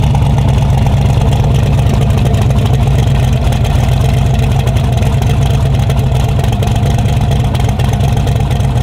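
An engine running at a steady idle, loud and even throughout.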